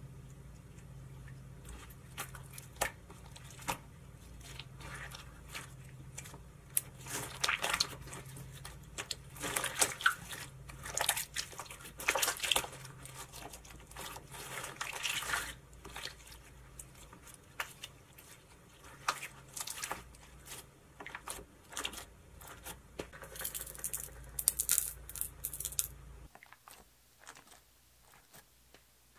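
Homemade glittery borax slime being stretched, pressed flat and squeezed by hand, giving irregular sticky clicks and pops that come in quicker, louder spells.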